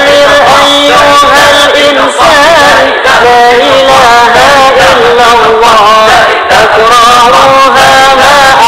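Sholawat, Islamic devotional chant, sung by a male voice in long, ornamented melismatic phrases that slide up and down in pitch.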